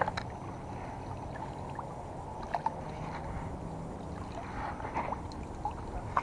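Steady low outdoor rush with a few scattered light clicks and taps as a fishing rod, reel and line are handled.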